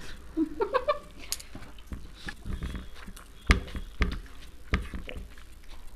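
Close-miked eating sounds: rice and egg curry eaten by hand, chewed and swallowed. There is a short rising hum from a full mouth about half a second in, and several sharp clicks and knocks in the second half.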